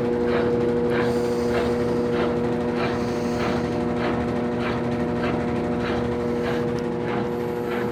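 Consul washing machine in its spin cycle with a load of double bed sheets: a steady motor hum with a swish repeating about two to three times a second as the drum turns.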